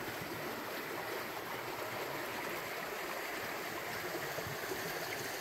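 A small forest creek running: a steady, even rush of flowing water.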